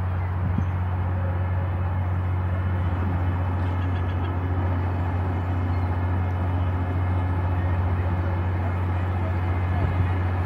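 Fireboat William Lyon Mackenzie's engines running with a steady low drone, over an even rushing noise as it turns close by.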